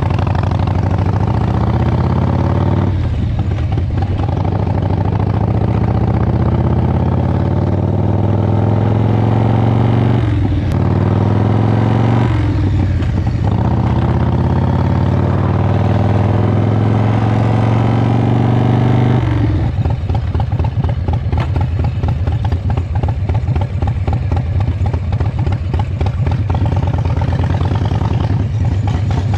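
1999 Harley-Davidson V-twin engine pulling under load, its pitch climbing in long stretches broken by short dips, as at gear changes. About two-thirds through it drops to a lumpy, uneven idle.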